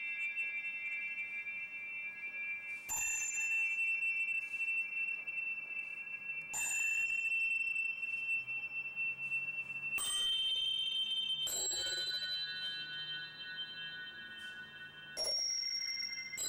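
Struck metal chimes or bells, hit five times about three to four seconds apart, each strike ringing on in several high, bright tones until the next.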